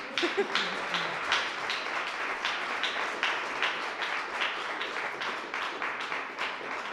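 Audience applauding, with many individual hand claps standing out in a steady patter.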